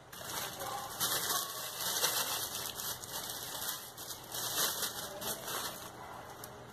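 Thin plastic bag crinkling and crackling as it is handled, for about six seconds before dying away.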